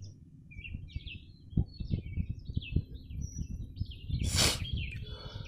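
Small birds chirping in quick, short high notes throughout, over a low rumble with a few soft knocks and a brief rustling hiss about four seconds in.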